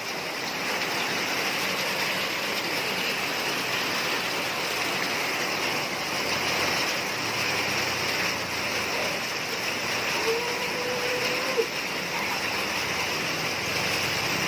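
Rain falling steadily, a continuous hiss of water with no let-up. About ten seconds in there is a brief, faint call.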